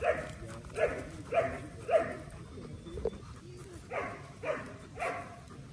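Doberman panting hard in short, heavy breaths, about two a second: a run of four, a pause, then three more.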